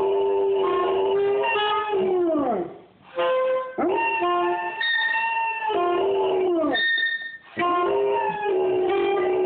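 Dog howling along with a saxophone in three long, drawn-out howls, each sliding down in pitch as it trails off. Saxophone notes are played between and under the howls.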